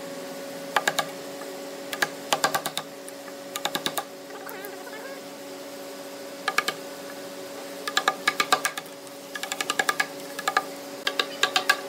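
A steel chisel tapped with a hammer in quick runs of light strikes, about ten a second, cutting a notch in a hardwood bed rail, over a steady low hum.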